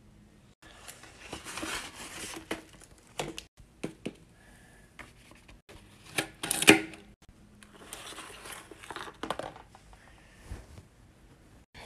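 Paper crinkling and rustling as a handmade paper blind bag is handled and opened. A sharp scissors cut through the folded paper comes a little past halfway and is the loudest sound. Light clicks and taps of small items being handled are scattered throughout.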